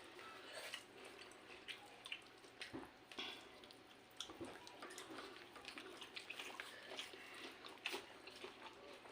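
Faint, irregular wet clicks and smacks of someone chewing and slurping egg chow mein noodles.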